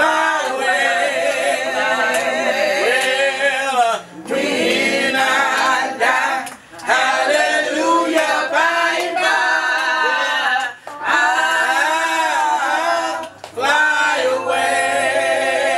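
Small mixed group of men's and women's voices singing a gospel song a cappella, with vibrato and short pauses for breath between phrases.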